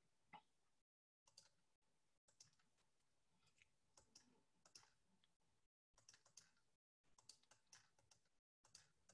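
Near silence with faint, scattered clicks of a computer mouse and keyboard as a link is copied and pasted into a web page.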